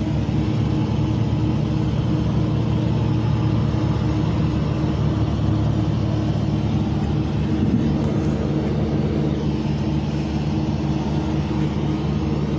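A vehicle engine idling, a steady low drone that holds unchanged throughout.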